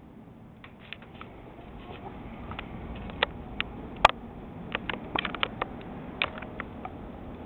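Scattered sharp clicks and light crackles at irregular intervals, several a second in places, with the loudest single click about four seconds in, over a faint low background.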